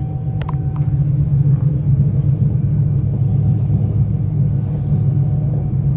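Steady low rumble of a moving vehicle, heard from inside, with a few faint clicks.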